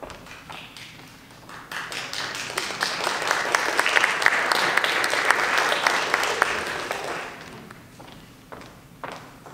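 Theatre audience applauding: the clapping swells in a couple of seconds in, holds, then dies away by about three quarters of the way through.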